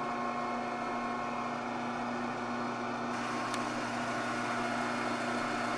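Steady electrical hum of a phase converter running to supply three-phase power, with the mixer itself standing still.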